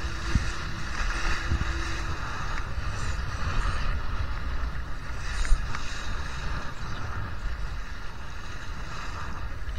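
Strong wind buffeting the microphone and water rushing past a Laser 2 sailing dinghy under way, a steady rumble and hiss. A faint steady hum stops about two seconds in, and there is one short sharp slap about halfway through.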